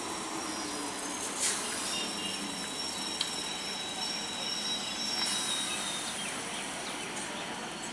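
Indian Railways EMU local train standing at the platform with its equipment running: a steady hiss and hum, with a thin high whine through the middle and a sharp click about one and a half seconds in.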